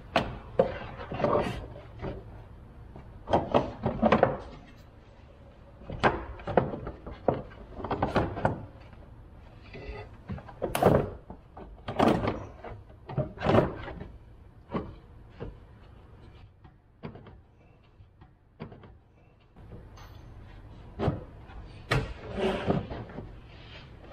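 Hand work in a pickup's engine bay: irregular knocks, clunks and rattles of parts and tools being handled and fitted, with a quieter stretch past the middle.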